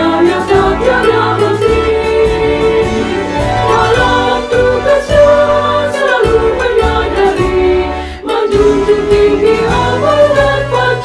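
Women's choir singing a march in Indonesian over instrumental backing with a steady bass, with a brief break between phrases about eight seconds in.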